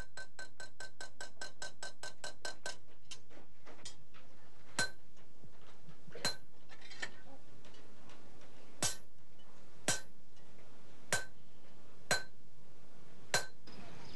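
Small hammer tapping a long steel Husa knife blade. It starts with a quick run of light taps, about six a second, that slows, then gives single sharper strikes about a second apart, each leaving a brief metallic ring.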